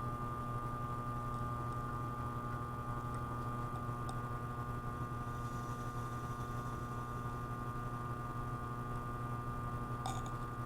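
Steady electrical mains hum, a low buzz with even overtones, with a couple of faint small clicks, one about four seconds in and one near the end.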